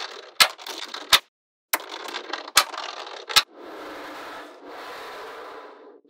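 Small metal magnetic balls clicking sharply together as strips are snapped into place, five or six clicks with a light rattle between them. In the second half this gives way to a steady scraping rattle for about two seconds.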